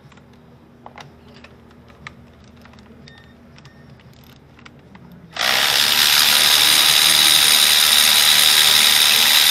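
Cordless electric ratchet on an extension, spinning a spark plug out of the engine's cylinder head: a steady motor whine starts suddenly about five seconds in and runs on. Before it, a few light clicks of the tool and socket being handled.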